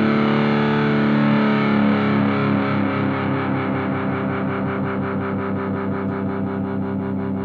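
Outro music on distorted electric guitar: a chord struck at the start rings on and slowly dies away, with a fast, even pulsing repeat running through it.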